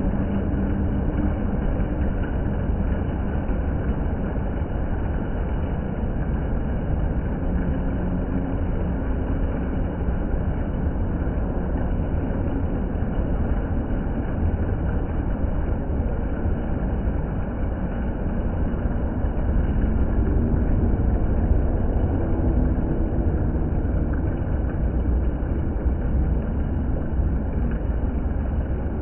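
Water fountain splashing steadily: a continuous low rushing noise that barely changes.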